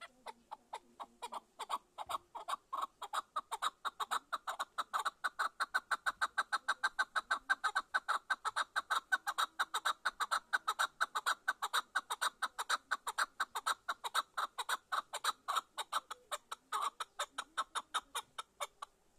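Chukar partridge giving its rally call: a long, rapid run of clucking chuk notes, about five a second. The notes start soft, grow loud over the first few seconds, and stop shortly before the end.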